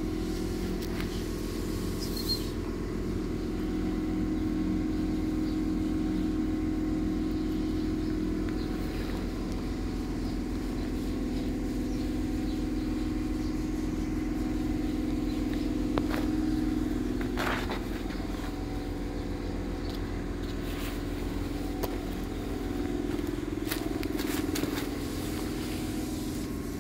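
A motor running steadily with a low, even hum, with a few faint clicks over it.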